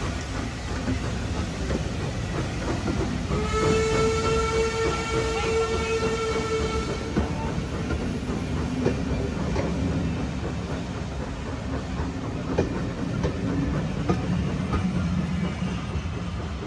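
Passenger coaches of a steam-hauled train rolling past with a steady rumble, the wheels clicking over the rail joints. About three seconds in, the steam locomotive's whistle sounds one long, steady note that lasts about three and a half seconds.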